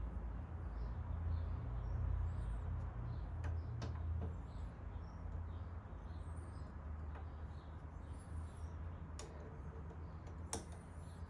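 A few sharp metallic clicks from hand tools working the bent brake-pad retaining pin, over a steady low hum, with small birds chirping in the background.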